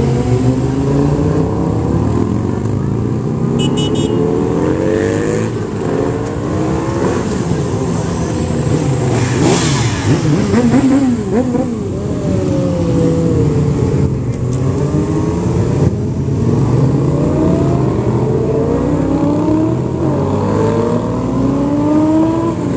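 A stream of sportbike engines passing one after another, their overlapping engine notes rising and falling as each bike rides by. A louder burst of revving comes a little before the middle.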